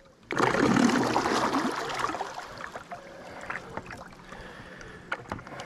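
Haibo M150 electric trolling motor starting up on an inflatable boat, its propeller churning the water into a rushing wash. The wash is loudest in the first two seconds, then settles to a steadier, quieter wash with a faint steady whine as the boat gets under way.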